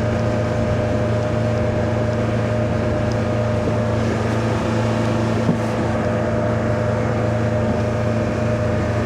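Mercruiser 120 sterndrive's four-cylinder engine running steadily with the boat under way. It makes an even drone over the rush of the hull and wind.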